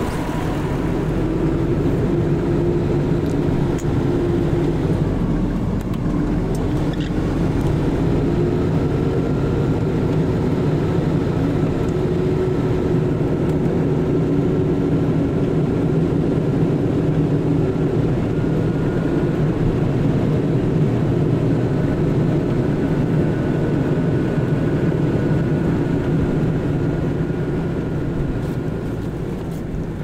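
A tractor engine running steadily under load, its pitch rising and falling a little, fading away near the end.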